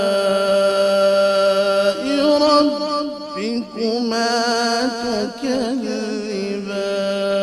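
A man reciting the Qur'an in the melodic tajwid style, drawing out long held notes with a run of quick ornamented turns in the middle.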